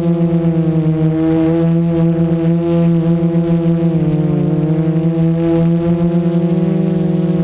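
Hoverthings Flip FPV Mini-350 quadcopter's electric motors and propellers running at a steady hover, a loud droning hum that beats and pulses a few times a second, with a brief dip in pitch about four seconds in as the throttle is eased.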